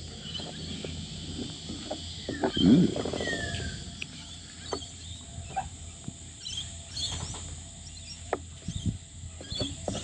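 Scattered light clicks and taps from small hand tools being handled over a steady outdoor background, with one brief louder low rumble about two and a half seconds in.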